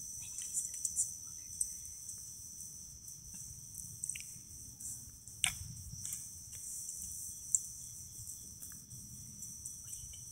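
Crickets trilling steadily in the dark, with a few faint scattered clicks and taps.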